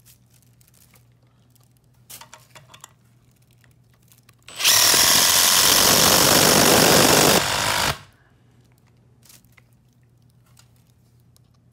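Cordless impact driver with an impact bit, hammering a 4-inch screw into pine. It runs in one loud burst of about three seconds that starts about four and a half seconds in and eases slightly just before it stops. A few light handling clicks come before it.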